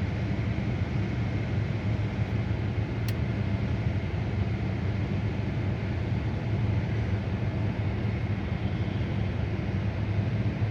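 Car engine idling steadily, with one short sharp click about three seconds in. The engine is one with a misfire on cylinder 2 after a cold start.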